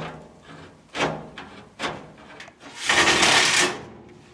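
Tin snips cutting the sheet-steel side panel of a furnace: three sharp metallic snips about a second apart, each ringing briefly. About three seconds in, a cordless impact driver runs for just under a second, driving a quarter-inch screw to fasten the filter cabinet to the furnace.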